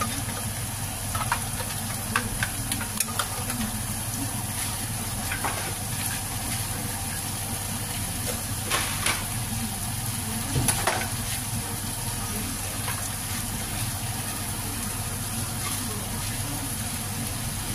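Ground chilli, garlic and shallot spice paste sizzling in hot oil in a wok, stirred with a spatula that scrapes the pan now and then, a little louder around the middle.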